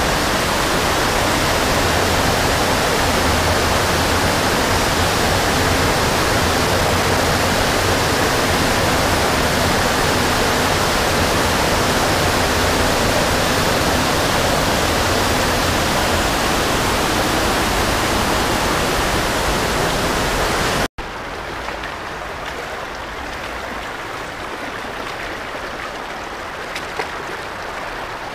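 Waterfall pouring into a shallow creek in a narrow sandstone slot canyon: a loud, steady rush of water. About three quarters of the way through it cuts suddenly to a quieter, steady flow of the creek, with a faint click or two.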